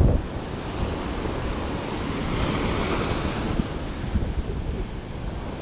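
Ocean surf washing up the beach. One wave runs in loudest about halfway through, and wind rumbles on the microphone.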